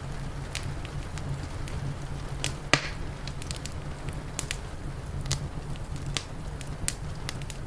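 Wood fire crackling, with scattered sharp pops and one louder snap a little over a third of the way in, over a steady low rumble.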